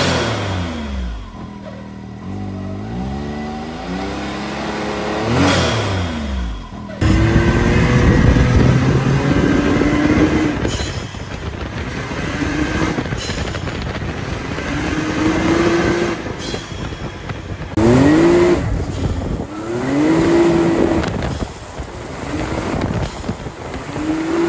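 Can-Am Maverick X3's turbocharged three-cylinder engine revved twice standing, with a sharp release at the top of each rev as its aftermarket blow-off valve vents, then driven, its pitch rising under throttle and dropping off several times as the throttle closes.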